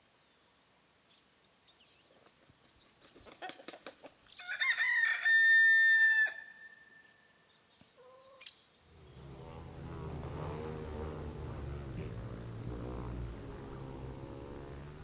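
A rooster crows once, about two seconds long, after a few short clucks. From about nine seconds in, a steady hum of honeybees at the hive entrance follows.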